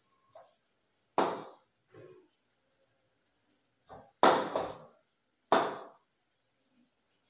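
Sharp kitchen knocks: three loud ones with short fading tails, about a second in, around four seconds and around five and a half seconds in, and a few fainter taps between them, from hands working roti dough into balls over a steel plate.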